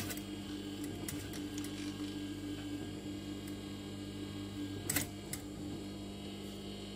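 Sewing machine stitching gently along a seam through fabric: a steady motor hum with light mechanical clicks, and a sharper click about five seconds in.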